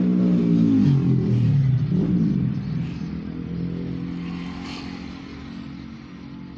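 Small motorcycle engines passing close by: the loudest one's pitch drops as it goes past about a second or two in, another sweeps up just after, and the engine sound then fades away.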